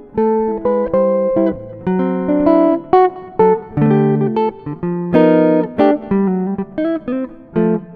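Background music: guitar picking a melody of plucked notes, each note ringing and fading.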